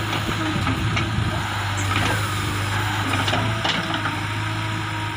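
JCB 3DX backhoe loader's diesel engine running steadily while the backhoe digs, with a few short knocks and scrapes from the bucket working the earth.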